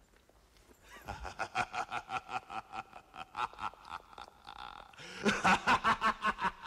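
A man laughing in a quick run of short 'ha' pulses, starting about a second in and getting louder about five seconds in.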